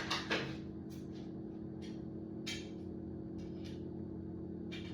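Copper pipe being worked and tugged inside a stuck fitting: several short metallic clicks and scrapes, the two loudest right at the start, over a steady low hum.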